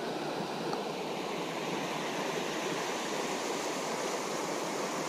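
River water rushing steadily, an even hiss of flowing water with no other sound standing out.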